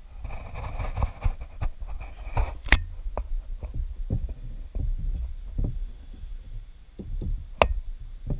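Handling noise from a small wooden folding screen being moved and adjusted on a tabletop: a run of dull knocks and thumps, with a light rustle at first and two sharp clicks, one about a third of the way in and one near the end.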